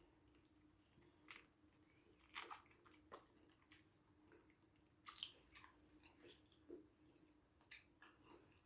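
Faint mouth sounds of eating eba with sticky ogbono soup by hand: chewing and wet smacks and squelches in short bursts, about six over the stretch, the loudest about five seconds in.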